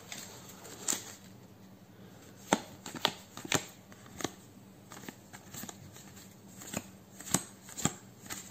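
Trading cards from a freshly opened booster pack being handled and flipped through one by one: irregular sharp card snaps and taps, about a dozen.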